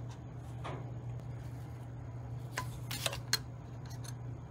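A handful of faint metallic clicks and taps as the twisted tabs holding the brass front door of a sheet-metal toy locomotive body are worked loose, over a steady low hum.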